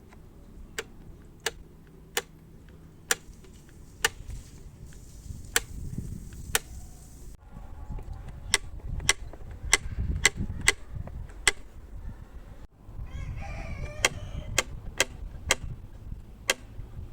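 Repeated sharp clicks from a mop bucket's wringer mechanism being worked, one every half second to a second, with a low rumble underneath.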